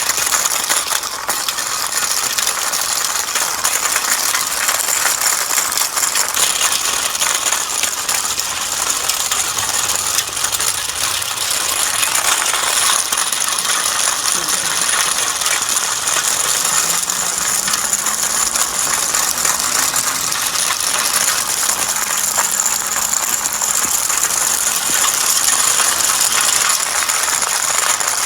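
Small battery-powered DC motor running with a steady high whine, together with a continuous rattle and clatter of light metal.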